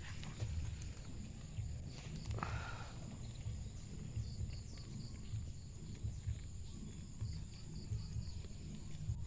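Outdoor background: an uneven low rumble on the phone's microphone, a steady high thin drone, and a quick run of faint chirps about four seconds in.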